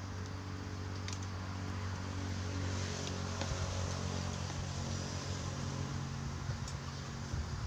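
A motor engine running steadily, a low hum that grows a little louder midway. A couple of light clicks, as of a spoon against a bowl, sound over it.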